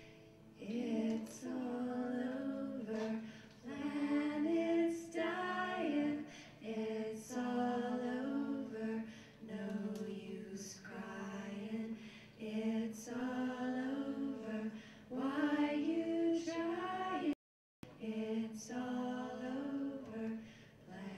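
Women's voices singing together in harmony, phrase by phrase with short breaks between. The sound cuts out completely for a moment near the end.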